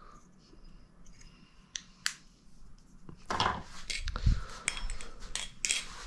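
Maxace Petrel balisong being flipped: its channel-titanium handles clack and click irregularly with a short metallic ring, sparse at first and busier from about halfway. The owner says it doesn't sound the best and puts that down to its tang pins and T8 pivot hardware, which can't be tightened much.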